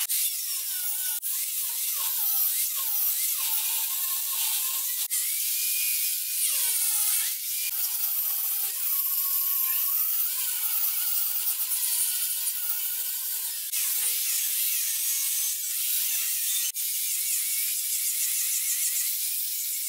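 Electric angle grinder with a sanding disc running at high speed against a wooden handrail. Its high whine dips and rises in pitch as the disc is pressed into the wood, and it breaks off sharply a few times.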